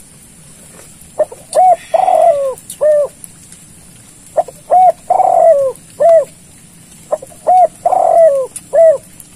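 Spotted dove (tekukur) decoy cooing: three loud phrases about three seconds apart, each a few short coos around one long, falling coo. It is the call used to lure wild spotted doves in to the hunters.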